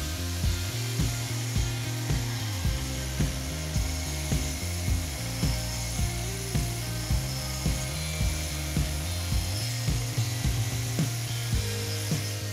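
Background music with a steady beat, just under two beats a second, over a steady high hiss from an angle grinder's diamond hole saw grinding through hard porcelain tile.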